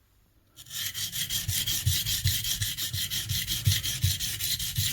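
Steel plane blade in a honing guide being worked back and forth across a sharpening stone: a steady, rhythmic scraping of about two and a half strokes a second, starting about half a second in.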